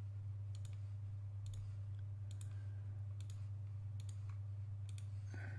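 Computer mouse clicking about once a second, each click a quick double tick, over a steady low hum.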